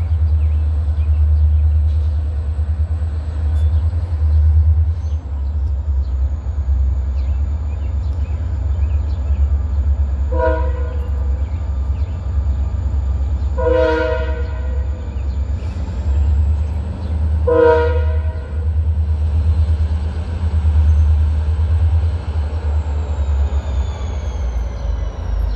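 Diesel locomotive approaching a grade crossing, its engine a steady low rumble. Its air horn sounds three short blasts, about ten, fourteen and eighteen seconds in, the middle one the longest, as a crossing warning.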